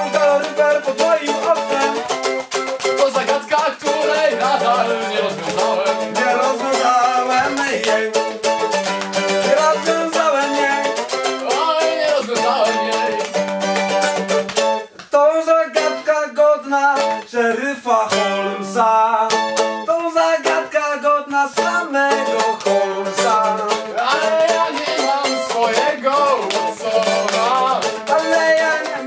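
Mandolin strummed in a fast, steady rhythm, moving through chords. The playing breaks off for a moment about halfway through, then carries on.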